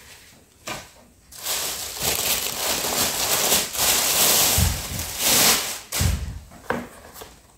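Thin plastic carrier bag rustling and crinkling as a cardboard pizza box is pulled out of it, with a couple of low thumps from the box near the end.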